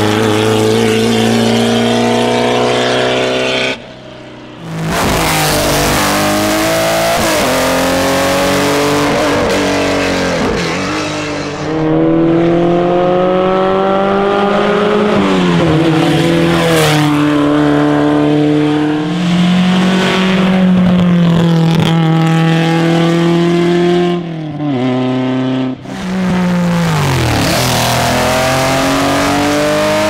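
Classic racing car engines at full throttle, one car after another, each revving up through the gears, the pitch climbing and dropping back at every upshift. One of them is an open-wheel single-seater.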